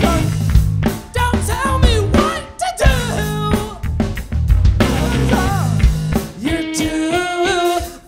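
Rock band playing live: a drum kit, distorted electric guitars and a sung lead vocal.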